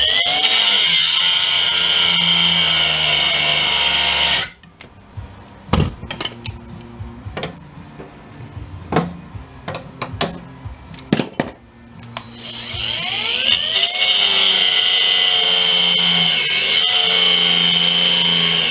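Electric drill drilling out rivets: two runs of several seconds each, the motor spinning up with a rising whine and then holding steady under load. Between the runs come scattered knocks and clicks of hand work on the metal.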